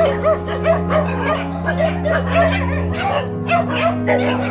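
Background music with held notes that change about three seconds in, over a pack of dogs yipping and barking in quick succession.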